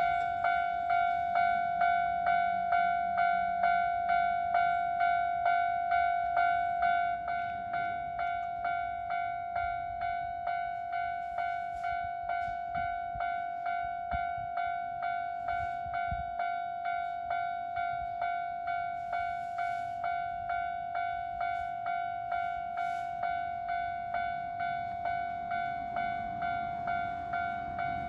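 Japanese railway level-crossing warning bell ringing its steady 'kan-kan' at about two strokes a second. The bell drops to a lower volume about seven seconds in.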